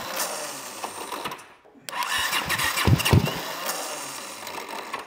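Honda CX500 V-twin being cranked on its electric starter in two long bursts, with a short break about a second and a half in, the engine not running on its own. The starter is misbehaving and getting worse after being run a little long and getting hot.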